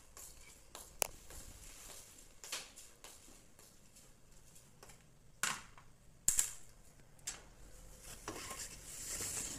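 Scattered light knocks and clicks of household handling, then a soft rustle near the end as laundry is taken from a top-loading washing machine.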